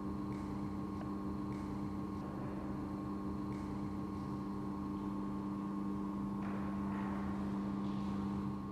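Steady electrical hum made of a few fixed low tones, with a slight rise in hiss about six and a half seconds in.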